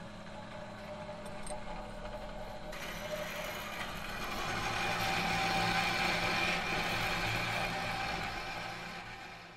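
Intro sound effect for an animated title: a steady mechanical drone with a hiss that swells to its loudest in the middle, then fades out near the end.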